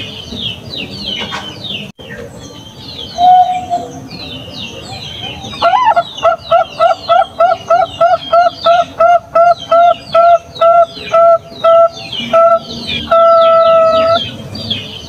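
Zebra dove (perkutut) singing: a single short coo, then a run of about twenty evenly spaced staccato coos, about three a second, slowing slightly, ending in one long held note. Fast high twittering chirps of other birds go on throughout.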